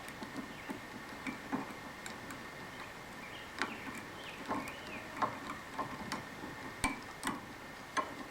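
Light metallic clicks and ticks at irregular intervals as pliers grip two Allen wrenches set in the flutes of a broken tap and wiggle it to work it loose, over a faint steady high-pitched hum.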